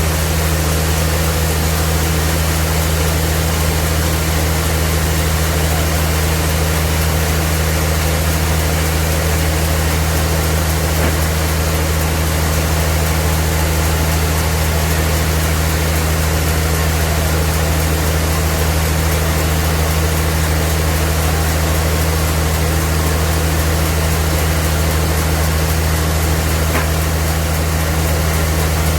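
Sawmill machinery running steadily, a constant low hum with even noise over it and no change for the whole stretch.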